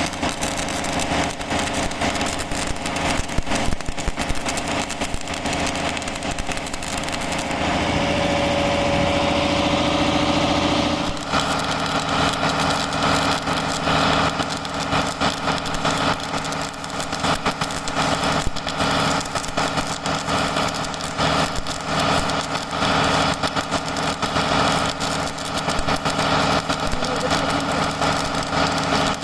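Stick arc welding: the arc crackles continuously over a steady machine hum. The sound turns smoother, with a steady tone, for a few seconds about eight seconds in, then the crackle returns.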